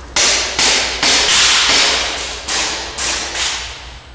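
Airsoft gas pistol or shotgun fire: about eight sharp shots in quick, irregular succession, each ringing out with the echo of a large warehouse.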